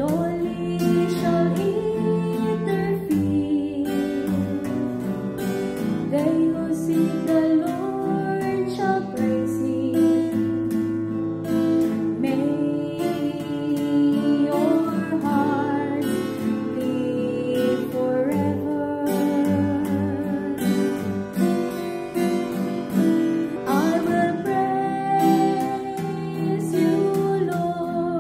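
Music: a psalm verse sung to acoustic guitar accompaniment.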